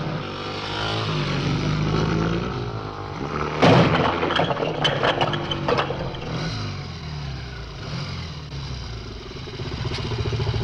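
Motorcycle engines running, climbing and falling in pitch as the bikes approach, then a loud crash about four seconds in as a motorcycle smashes through a brick wall, with bricks knocking and clattering down for a couple of seconds. An engine runs on and swells again near the end.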